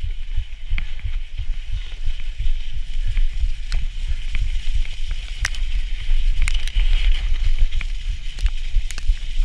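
Ride noise from a bicycle going over a rutted snow track: a steady low rumble of wind and jolting on the body-worn camera's microphone, with scattered sharp clicks and rattles from the bike.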